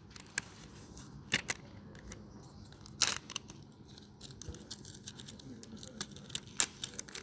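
Phone packaging being handled as the phone is pulled from its box: scattered small clicks and rustles of cardboard and wrapper, with one louder scrape about three seconds in.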